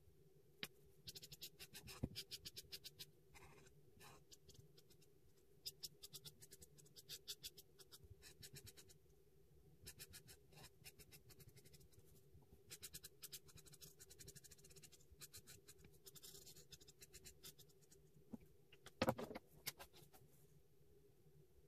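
Felt-tip art marker rubbing on sketchbook paper in quick back-and-forth strokes, colouring in a drawn area, with short pauses between runs. Near the end there is a brief cluster of louder knocks.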